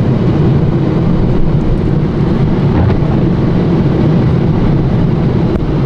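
Car being driven on a snowy road: a steady, loud rumble of engine and tyres.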